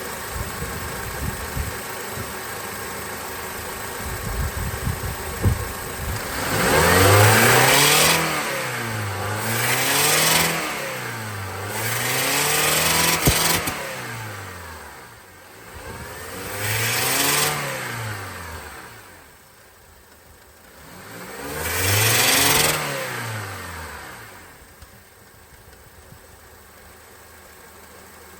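Engine idling, then revved up and let fall back five times, each rev rising in pitch and settling back to idle. The revs are meant to bring out a weird noise that the owner hears around 3000 rpm.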